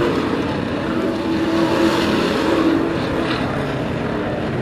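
Race trucks' engines running at racing speed, a steady engine drone made of several pitches layered over each other, swelling a little about two seconds in.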